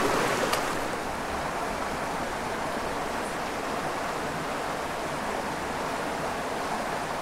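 Small mountain creek running over rocks in a steady rush, a little louder in the first second.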